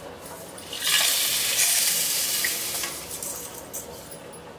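Roasted niger (ram til) seeds and dried red chillies pouring out of a tilted stainless-steel bowl into a steel vessel: a dry, hissing rush of seeds that starts about a second in, lasts about two seconds, then tails off.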